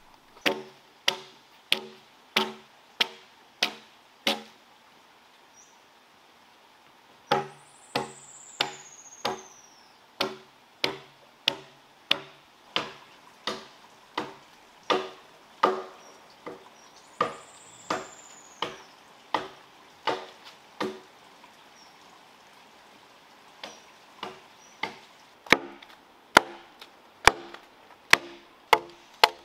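Axe blows chopping into a felled log, about one and a half strokes a second, each blow leaving a brief pitched ring from the wood. The chopping pauses twice.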